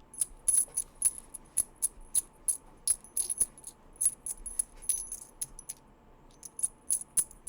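Small silver coins clinking together in the hand, a quick run of sharp metallic clinks with a bright high ring, pausing briefly near the end before the clinking starts again.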